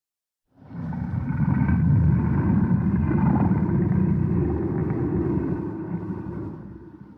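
King Kong's roar as heard in the 1960s Toho films: one long, low roar that starts suddenly about half a second in and fades away near the end.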